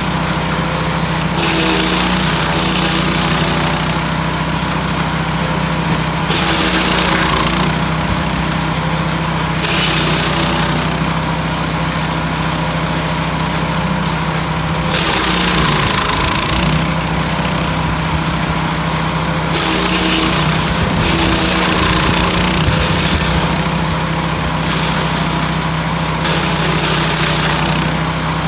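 Lumag HC10 portable wood chipper running steadily, with repeated louder, harsher stretches of a few seconds each as branches are fed in and chipped.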